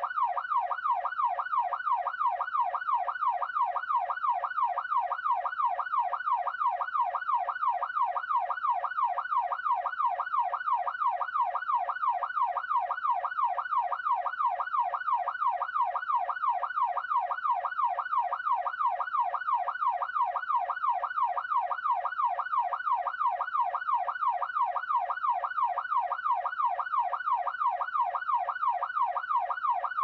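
Police siren in yelp mode, its pitch sweeping rapidly up and down about twice a second in an even, unbroken cycle.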